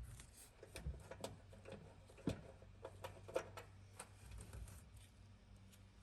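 Faint scattered clicks and knocks of tools and dryer parts being handled, the loudest about two and a quarter seconds in and again a second later, over a low steady hum.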